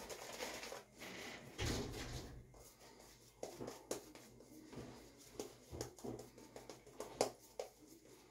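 Merkur 34C double-edge safety razor scraping through lathered stubble on the second pass: a run of short, faint scraping strokes with small clicks, at an uneven pace.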